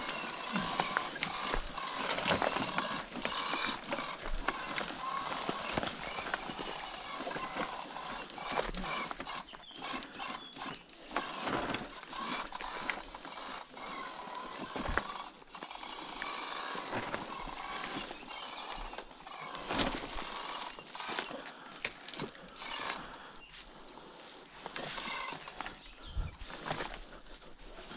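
A Sur-Ron electric dirt bike walked down a steep rocky trail: footsteps and tyres crunching and rattling over loose stones and dry leaves, with many short clicks and knocks from the bike.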